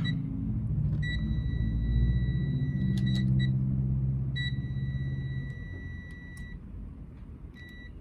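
Multimeter continuity beeper sounding a steady high beep while its probes touch the jumper-wire joints on an Xbox Series X board: a long beep with a few scratchy clicks, a second long beep, then a short one near the end, which signals a closed circuit between the test points. A low hum runs underneath and fades.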